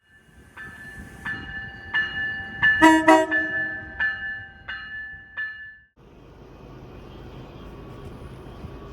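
Locomotive air horn sounding a series of short chord blasts, loudest in a quick cluster about three seconds in. It cuts off about six seconds in, giving way to a steady low rumble.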